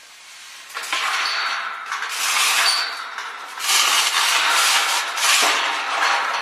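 A camel at a tub of spiny prickly pear cactus pads, its mouth close to the microphone: a run of loud, rough scraping and crunching bursts, roughly one a second, starting about a second in.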